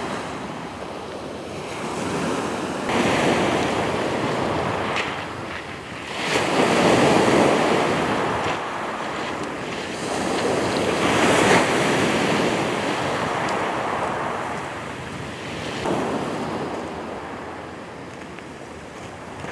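Surf breaking and washing up a shingle beach, swelling and fading every few seconds, with wind buffeting the microphone.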